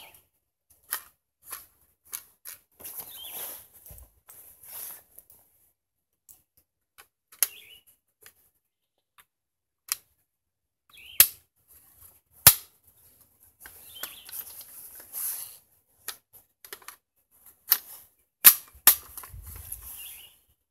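Metallic handling clicks of an AR-15 being loaded: cartridges pressed into a rifle magazine, with two sharp snaps about a second apart midway through. Near the end come two more loud clacks, as the loaded magazine goes into the rifle.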